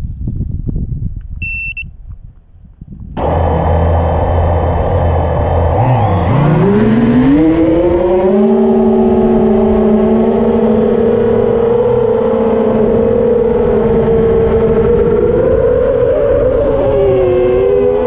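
Motors of a 6S FPV racing quadcopter, heard from its onboard camera. After a few knocks and a short beep, the motors spin up about three seconds in with a loud whine. The pitch rises as the quad takes off, then holds as a steady motor whine in flight, wavering slightly near the end. The pilot suspects an ESC or motor fault that makes the quad twitchy.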